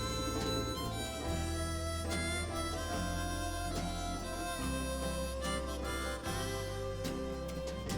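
Background music: a blues-style track led by harmonica over bass and guitar, with a steady beat.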